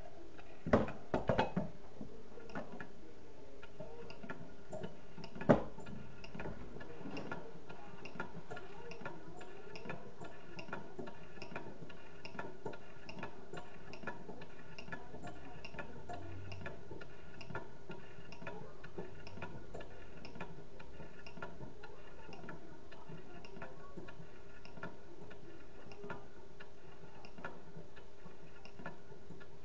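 Small low-temperature Stirling engine running on the tabletop, its mechanism ticking at a steady even rate. A few knocks in the first seconds as it is set down, and one sharper knock about five seconds in.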